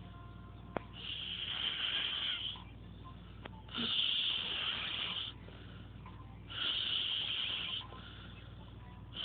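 Snoring: long hissing breaths repeating about every three seconds, three of them in full and a fourth beginning at the end.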